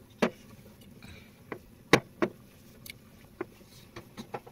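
Scattered small plops and clicks from a simmering pot of dal and rice with dough pieces in it, about nine over four seconds, irregularly spaced, the loudest about two seconds in.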